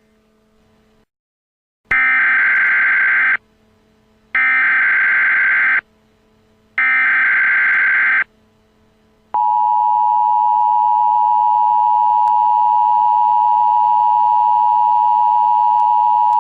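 Emergency Alert System tones. Three loud, buzzy bursts of digital SAME header data, each about a second and a half long with short gaps between them, are followed about nine seconds in by the steady two-tone EAS attention signal, which holds to the end.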